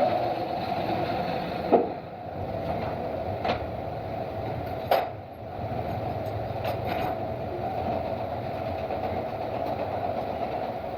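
Woodworking shop machinery running with a steady hum, with three sharp knocks spread through the middle and a few lighter clicks after them.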